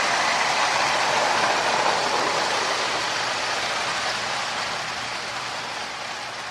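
Marx tinplate E7 diesel locomotives with power-pull motors running on metal toy track: a steady rumble of the motor and wheels that grows fainter over the last few seconds.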